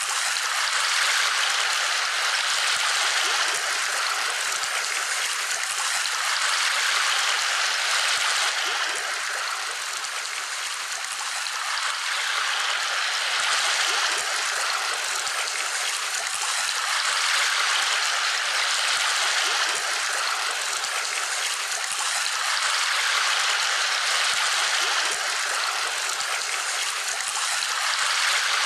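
Steady rushing noise like running water, swelling and easing every few seconds, with no motor tone in it.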